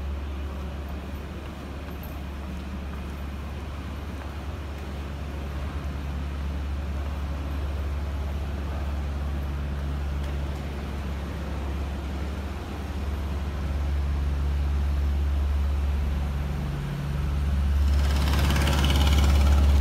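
Low, steady rumble of an idling airport apron bus, growing louder, with its engine hum coming in and out. Near the end a loud burst of hiss sets in.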